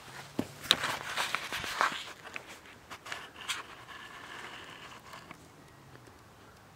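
Footsteps on grass with rustling and clicking handling noise, loudest and busiest in the first two seconds, then a faint steady hum for a second or two past the middle.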